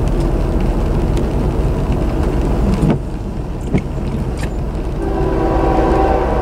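Norfolk Southern locomotive horn sounding as the train approaches, a chord of several steady tones. It breaks off about halfway through, a couple of knocks fall in the gap, and it sounds again near the end, all over a steady low rumble.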